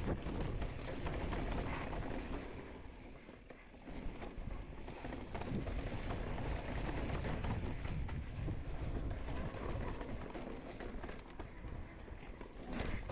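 Mountain bike rolling fast down a dirt and rock trail: a steady rush of wind on the microphone and tyre noise, with scattered knocks and rattles as the bike goes over rough rock.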